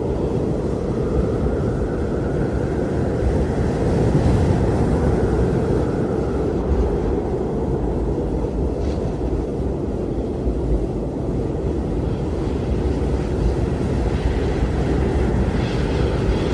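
Blizzard wind blowing as a steady low rumble, with a faint whistling tone over it in the first few seconds.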